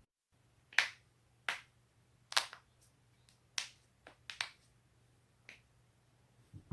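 Spinal joints cracking: a series of about eight sharp pops, roughly a second apart, a couple of them in quick pairs, as the neck and back are twisted and adjusted.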